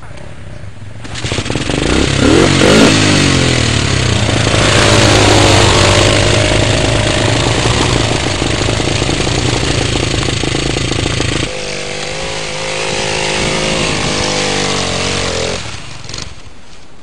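Dirt bike engine revving hard as the bike pulls away up a hill climb, the pitch rising and held high under load. About two thirds of the way through the level drops suddenly, then the revs climb again before the sound fades out near the end.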